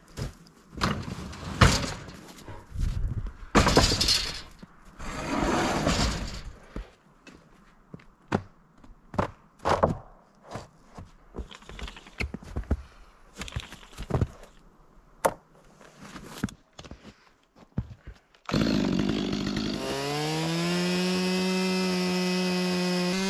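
Scattered wooden knocks, clatters and scraping, then about 18 seconds in a two-stroke chainsaw starts with a burst and settles into steady running, its pitch dropping slightly as it settles.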